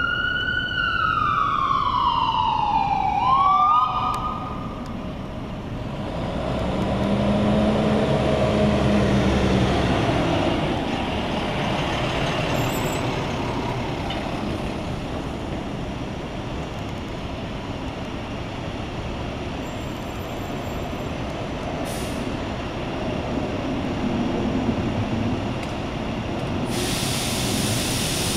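An emergency vehicle siren sweeps down in pitch, rises briefly, and cuts off about four seconds in. A heavy vehicle's engine then runs louder for a few seconds, like an ambulance driving past, over steady street traffic.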